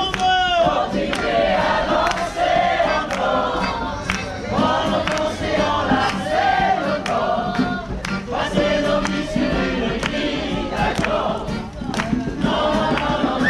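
A crowd singing together in chorus, with hands clapping along in a steady beat.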